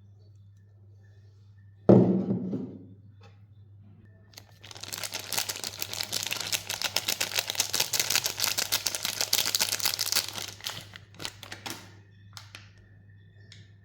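A soap bar's packaging being handled: one heavy thunk about two seconds in, then about six seconds of dense, rapid crinkling as the wrapping is torn and unfolded, ending in a few light taps.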